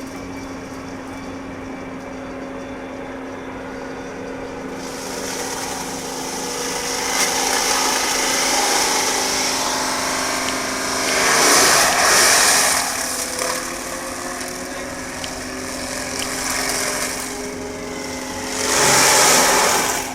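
Hydraulic excavator running a Seppi forestry mulcher: a steady engine note that comes under load about five seconds in, with two loud rushing bursts roughly seven seconds apart.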